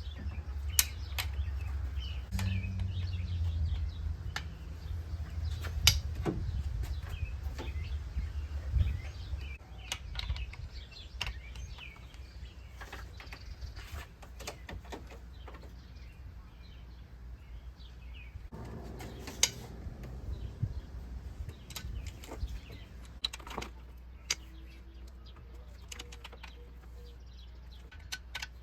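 Scattered short clicks and knocks of hand tools and metal parts being handled, with birds chirping faintly in the background. A low rumble runs under the first nine seconds or so, then fades.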